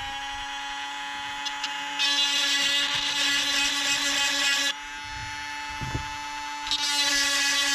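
Small 12-volt electric chainsaw chain sharpener running with a steady whine. Its grinding stone bites into a chain tooth twice, from about two seconds in until nearly five and again near the end, each time with a louder, harsher grind.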